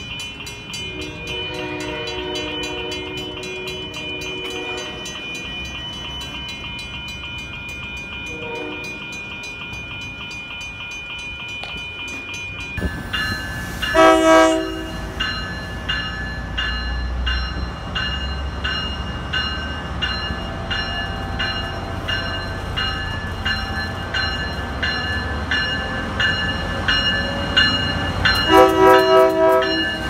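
Train horns with a bell ringing steadily throughout. First a faint horn chord sounds a few times over the ringing; then, after a sudden change about halfway through, a BL36PH diesel passenger locomotive blows its horn loudly and again near the end as it runs past close by, its engine rumbling.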